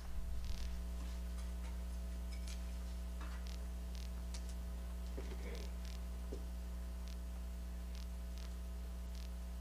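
Steady low electrical mains hum through the sound system, with scattered faint clicks and taps on top.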